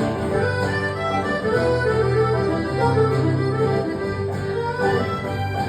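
Instrumental break in a live acoustic folk song: a sustained melody line with held notes over acoustic guitar and a bass line that moves about once a second.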